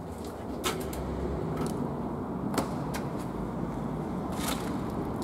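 Footsteps and scuffs on a debris-strewn concrete floor, heard as a few short, irregular clicks and crunches over a steady low rumble.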